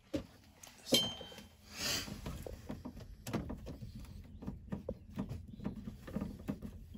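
Small handling clicks and taps as an insulated screwdriver works a terminal screw on a GFCI outlet. A sharp metallic clink sounds about a second in, a short rustle follows, then a run of soft ticks and scrapes from the screwdriver tip and the wires.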